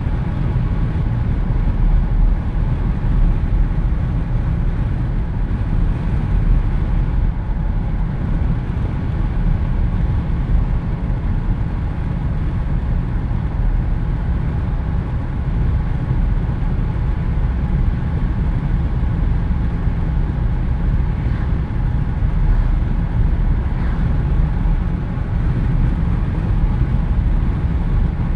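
Jeep Wrangler driving at road speed with the windows down: a steady, low rush of wind buffeting through the open cabin over the vehicle's road noise.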